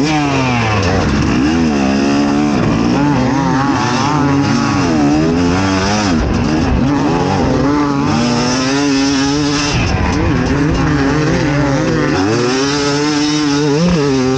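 Fantic XE 300 two-stroke enduro motorcycle engine revving up and down over and over, its pitch climbing and dropping every second or two.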